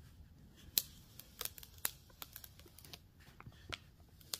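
Clear vinyl transfer tape being slowly peeled off a decal pressed onto glass, giving faint, scattered crackles and ticks.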